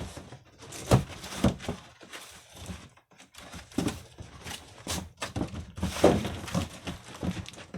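A cardboard box being handled and flipped over, with a series of dull thunks and scuffs.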